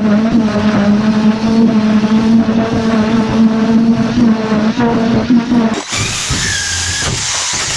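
Handheld electric power tool running under load, its motor whine wavering as an abrasive head scrapes rust off sheet steel. Nearly six seconds in the sound cuts off suddenly and is replaced by a quieter, higher, steadier whine.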